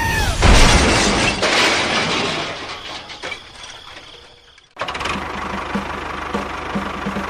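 A loud crash, like something breaking, that dies away over about four seconds, then, after a sudden cut, a steady mechanical pulsing.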